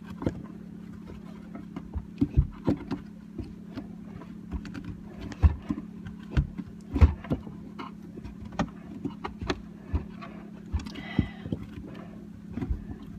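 Irregular metallic clicks, taps and knocks of pliers working on the faucet's mounting fittings under a sink, over a steady low hum.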